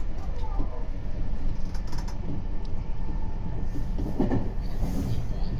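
Meitetsu 3500 series electric train running, a steady low rumble heard from inside the car, with a few short knocks about four seconds in.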